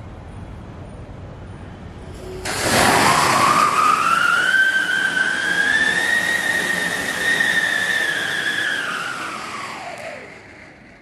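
Sivaraj Mega Siren whistling anar (fountain firework) going off: about two and a half seconds in it bursts into a loud hissing spray with one long whistle that rises in pitch, holds high, then falls away near the end as the fountain dies down.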